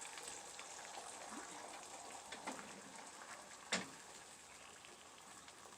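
Eggs and vegetables cooking in a pan with a faint, even sizzle, and a single sharp tap a little under four seconds in.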